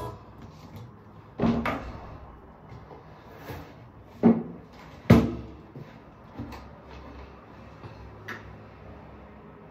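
Plastic sports water bottle being handled: a few sharp clunks and knocks, three louder ones about a second and a half, four and five seconds in, then a couple of lighter taps.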